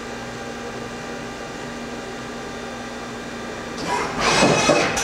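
Brother TC-S2DN-0 CNC drill tap center running with a steady electrical hum and several high whining tones. About four seconds in, a louder rushing noise rises for about a second.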